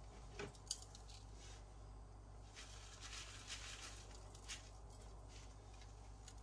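Near silence: faint steady room hum with a few soft, scattered clicks.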